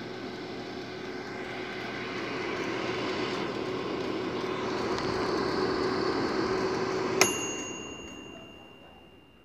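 Philco air fryer's fan running with a steady hum and rush of air, working again after a blown fuse was replaced. About seven seconds in, the mechanical timer runs out with a single bell ding that cuts the power, and the fan winds down.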